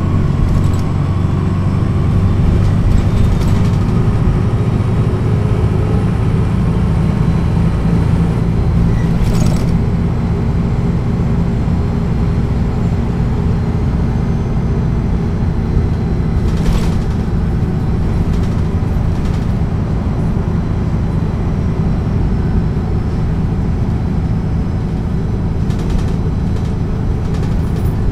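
MAN NL 263 low-floor city bus's six-cylinder diesel engine running steadily, heard from aboard the moving bus. The drone holds fairly even throughout, with a few brief clicks or rattles.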